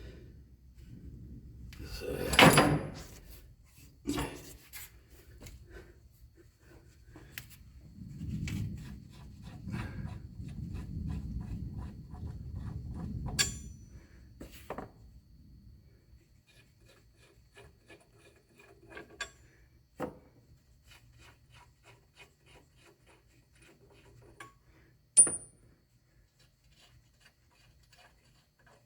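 Hand work with tools and parts: a loud scrape about two seconds in, a longer spell of rubbing and scraping, then scattered light clicks and one sharp knock near the end.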